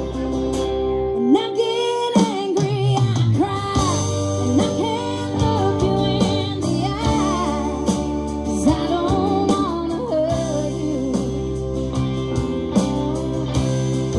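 Live band playing: singing over acoustic and electric guitars, bass guitar and drums, with the vocal line coming in about a second in.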